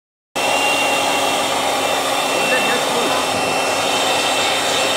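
Homemade model turbojet running: an electric blower acting as the compressor pushes air through a gas-fed pipe combustion chamber and out of the nozzle as a flame. It starts suddenly about a third of a second in, a steady rushing noise of blown air and burning gas with a thin, high whine.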